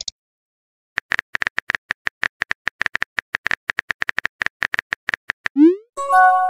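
Simulated phone-keyboard typing clicks, several quick taps a second for about four seconds. They are followed by a short rising swoosh as the text message is sent, and then a brief electronic chime of several steady tones.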